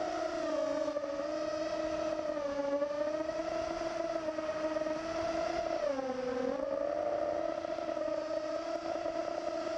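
Racing quadcopter's four Cobra 2204 2300KV brushless motors and 5-inch props whining as heard from the onboard GoPro Session, the pitch rising and falling with the throttle. The whine dips noticeably about six seconds in as the throttle is chopped, then climbs back.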